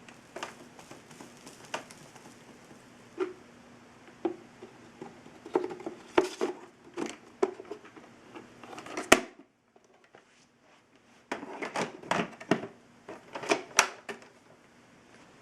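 Irregular clicks, taps and short rustles of things being handled, over a faint steady hum that drops out for a couple of seconds past the middle.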